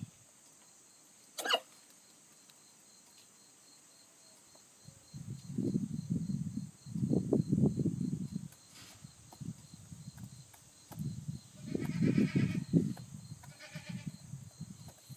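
Wheaten Ameraucana cockerel sneezing once, a short sharp sound about a second and a half in: the sign of a respiratory illness, which turned out to be pneumonia from Aspergillus fumigatus (aspergillosis). From about five seconds on there are repeated bursts of low rumbling noise.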